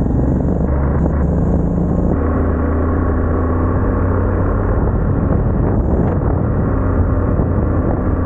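BMW R1250GS Adventure's boxer-twin engine and exhaust running steadily while riding, a continuous low engine note.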